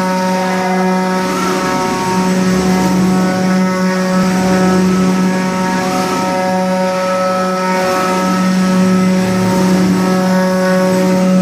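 5-axis CNC milling center running, a steady droning hum with a constant pitch that does not change throughout.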